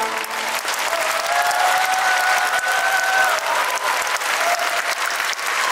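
Audience applauding steadily, dense clapping.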